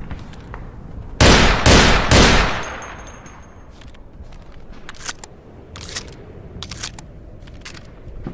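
Browning Auto-5 semi-automatic shotgun fired three times in quick succession, about half a second apart, with the report trailing off over about a second. A few sharp clicks follow a few seconds later.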